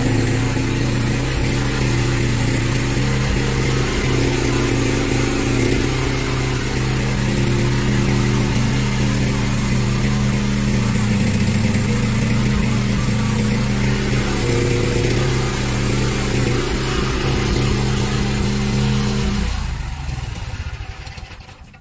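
A one-ton mini excavator's 13-horsepower Briggs & Stratton gasoline engine running steadily while the machine digs, with small shifts in pitch along the way. The sound dies away near the end.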